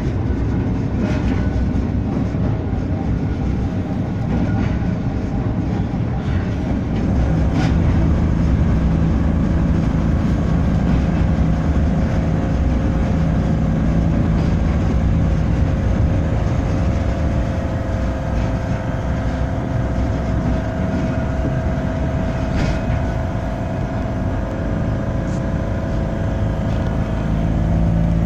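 Blackpool tram no. 715 running along street track, heard from inside the car: a steady rumble of wheels and running gear, with a steady motor hum through the middle and a few sharp ticks.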